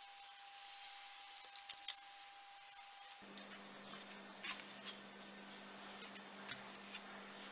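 Faint handling sounds: light clicks, taps and paper rustles as a black 3D-printed plastic stand is pressed and moved about on a sheet of paper while felt pads are stuck on. A steady faint hum lies under it and drops to a lower pitch about three seconds in.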